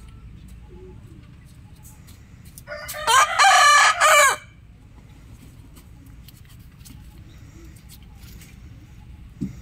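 A rooster crows once, about three seconds in: a loud cock-a-doodle-doo of nearly two seconds with a short break before its final part. Around it, a low steady background rumble.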